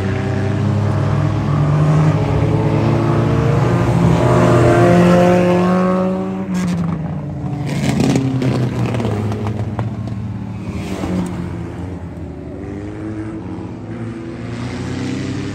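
Several race car engines running together on a dirt oval, growing louder and climbing in pitch over the first six seconds, then dropping in pitch and easing off to a lower, steady drone.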